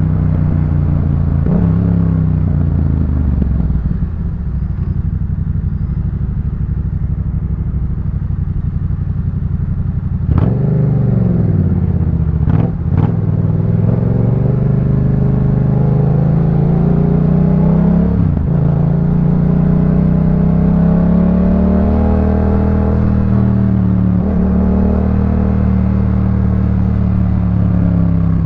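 2018 Yamaha MT-07's 689 cc parallel-twin engine through a Jeskap K4 full aftermarket exhaust, pulling under load while riding. The revs climb and drop back at several gear changes, with a few sharp pops around the shifts near the middle.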